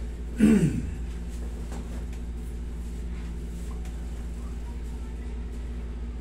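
A person's short groan, falling in pitch, about half a second in, under hands-on massage pressure. A steady low machine hum runs underneath.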